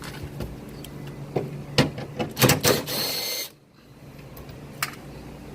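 Ratchet wrench working the 10mm bolts that hold a car's trunk latch, a quick run of clicks about two seconds in, then a short rasping noise that cuts off suddenly.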